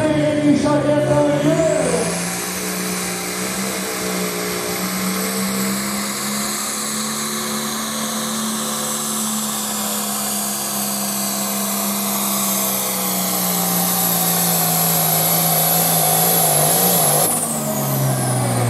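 John Deere farm tractor's diesel engine held at full throttle under load pulling a weight-transfer sled, with a high turbo whistle over the steady engine note. Near the end the engine and the whistle both wind down as the pull finishes.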